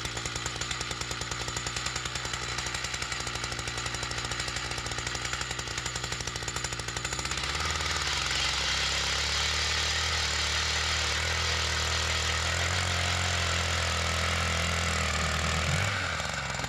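Jiffy power ice auger running at full throttle, drilling a hole through thick, slushy lake ice. Its engine note deepens and grows louder about halfway through as the bit works deeper, then eases near the end.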